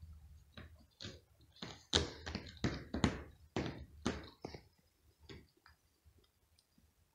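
A cat's claws and paws scratching and scuffing on a rug as it rolls and kicks at a toy mouse: a quick, irregular run of short scratchy strokes, loudest in the middle, thinning out and stopping about five and a half seconds in.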